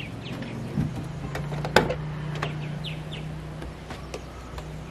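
Birds chirping in short calls, with a few knocks as a van door is opened and someone climbs in, the sharpest about two seconds in.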